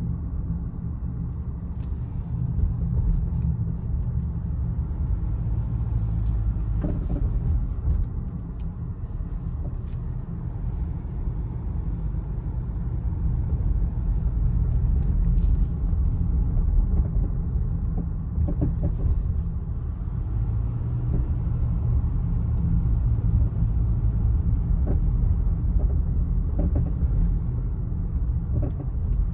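2015 Honda CR-V on the move, heard from inside the cabin: a steady low road rumble with a few faint knocks scattered through it, the clunk that the owner puts down to a worn, loose front sway bar end link.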